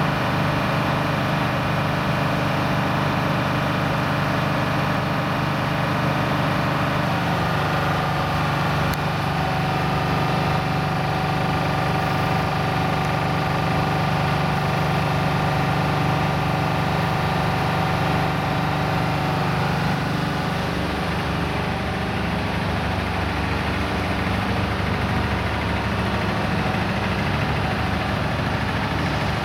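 Heavy-haul truck's diesel engine running slowly under load, a steady drone whose note shifts about a quarter of the way in and again about two-thirds of the way through.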